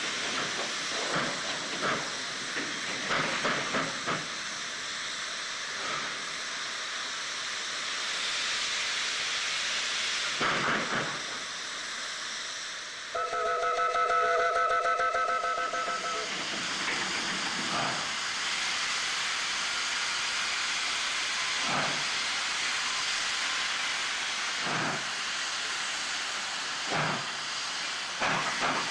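4-8-2 steam locomotive hissing steam steadily, with loud puffs every few seconds. About halfway through, its steam whistle sounds one wavering blast of about three seconds.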